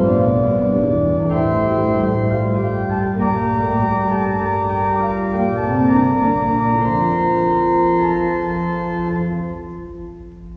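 Organ music: slow, sustained chords that die away near the end.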